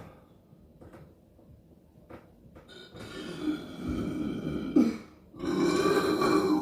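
Person burping: two long, drawn-out burps, the first beginning about three seconds in and the second, louder one following right after it.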